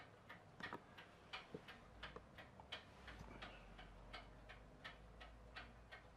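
Faint, slightly uneven ticking, about three ticks a second, over near silence.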